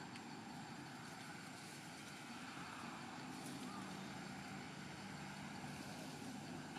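Faint steady outdoor background hum: a low rumble with a thin, steady high tone above it.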